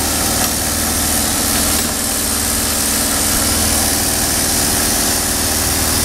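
An engine running steadily with an even, rapid beat, under a constant high hiss.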